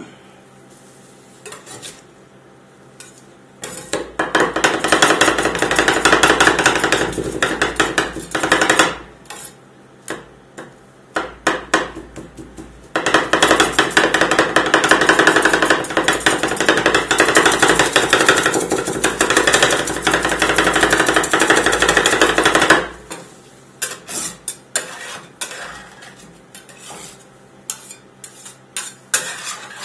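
Two metal scrapers rapidly chopping apple pieces and ice cream base on the frozen steel plate of a rolled ice cream machine, a fast metal-on-metal clatter. It comes in two long runs with scattered single taps before, between and after them.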